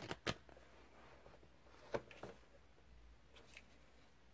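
Pages of a thick workbook being flipped and handled: a few soft clicks and rustles of paper, with a couple more light taps about two seconds in.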